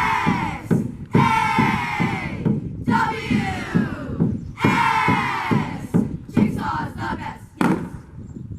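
A group of girls shouting a team cheer together in repeated bursts, each cry sliding down in pitch, over a steady beat of thumps. The chanting breaks off near the end.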